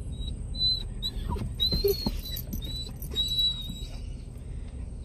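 A dog whining with excitement in about five short, high-pitched whimpers, one rising and falling about two seconds in. Under it runs the low, steady road rumble of the car cabin.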